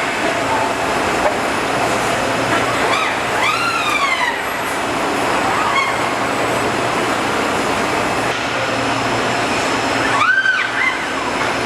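Steady mechanical noise with a low hum, broken twice by a whine that rises and then falls: once about three seconds in and again near the end.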